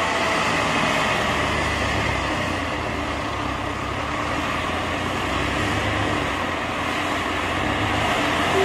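Tractor engine running steadily under load, driving a front-mounted snowblower that cuts through a snowbank and throws snow.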